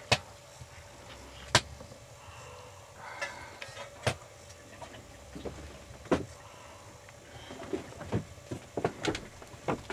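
Irregular sharp clicks and knocks, about eight of them a second or two apart, over a quiet background.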